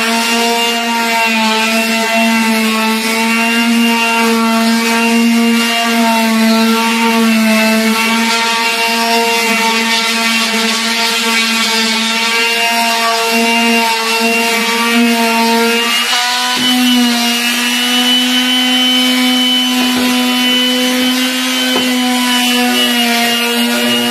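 Handheld electric palm sander running steadily against bare, paint-stripped wood: a constant motor hum over a gritty sanding hiss. The hum's pitch steps up slightly about sixteen seconds in.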